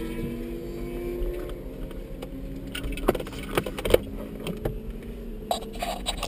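Supercharged MINI Cooper S four-cylinder engine running at low load, heard from inside the car, with scattered clicks and knocks from about three seconds in. The sound cuts off abruptly at the very end.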